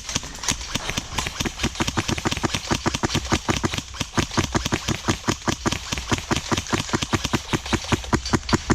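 Airsoft high-capacity magazine being wound: its ratchet wheel gives a rapid, even run of clicks that goes on without a break, the magazine being refilled after the player ran out of ammo.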